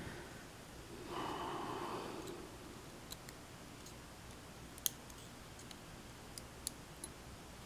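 A steel lock pick probing inside a brass lock cylinder, giving a handful of small, sharp, separate metallic clicks, the loudest about five seconds in. About a second in there is a short stretch of soft rustling as the cylinder is handled.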